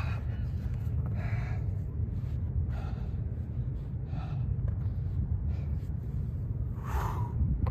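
A man breathing hard during bodyweight exercise: four short, sharp exhalations, over a steady low rumble.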